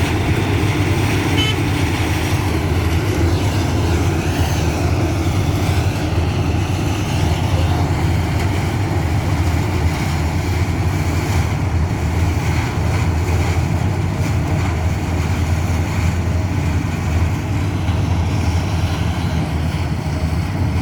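Combine harvester running steadily while harvesting mustard, a constant low mechanical drone of engine and machinery with no break.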